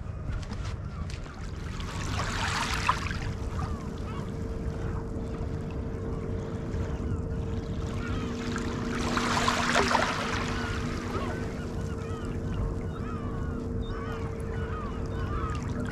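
Small waves washing in at the edge of the Severn Estuary, swelling up twice, with wind rumbling on the microphone. A steady low hum runs underneath, and many short distant bird calls come through in the second half.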